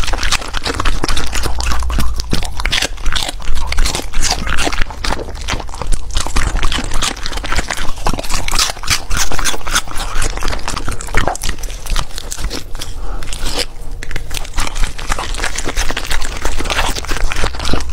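Golden retriever chewing and crunching raw yellow bell pepper and apple, a dense run of crisp, irregular bites.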